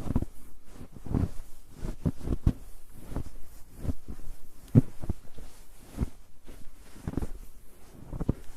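Footsteps on a snow-covered road: dull crunching steps at an uneven pace of about one to two a second.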